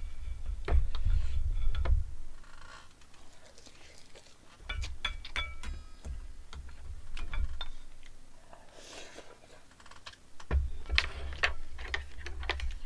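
Close-up eating sounds: chewing with scattered sharp clicks, and a wooden spoon scraping and knocking in a stainless steel bowl, which rings briefly about five seconds in.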